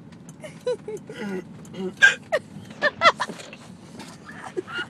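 A person hiccupping several times, each a short, sudden voiced 'hic'.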